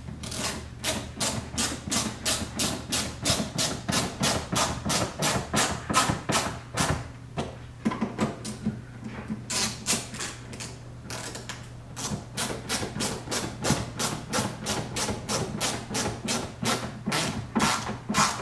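Hand driver turning screws back into a plastic wheel-well liner: a steady run of sharp clicks, about four a second, from the tool working back and forth.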